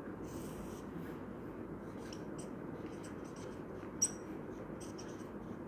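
Marker pen stroking on a whiteboard, drawing a line and writing letters in short, scratchy strokes over a steady low room hum, with a brief click about four seconds in.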